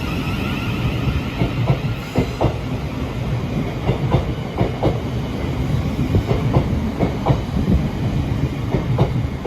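Class 700 Thameslink electric multiple unit passing close by: a steady rumble with the wheels clicking repeatedly over rail joints.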